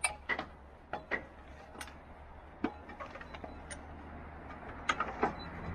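Irregular light knocks and clicks of boots and hands on a fire engine's metal rear ladder and roof as a person climbs up, about a dozen in all, over a low steady hum.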